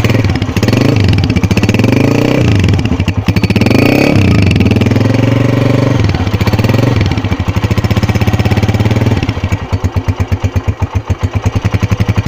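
Honda CG 125 motorcycle's single-cylinder four-stroke engine revved four times in quick succession, held up briefly, then dropping back to a steady idle about nine seconds in.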